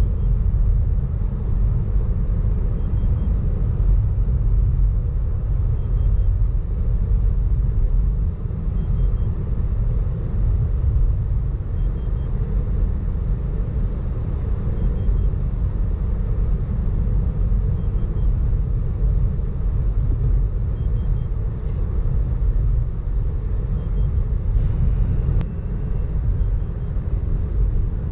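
Cabin noise of a 2018 Mitsubishi Pajero Sport 4x4 cruising at highway speed. The tyres, the wind and the 2.4-litre turbodiesel blend into a steady low rumble.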